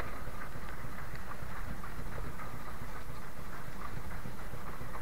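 Steady low rumble of wind buffeting the microphone on a small open fishing boat at sea, with a few faint clicks and knocks from fishing tackle.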